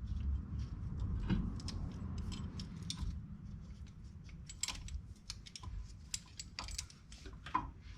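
Scattered light clicks and metallic rattles of hand work on parts and tools, over a faint low hum.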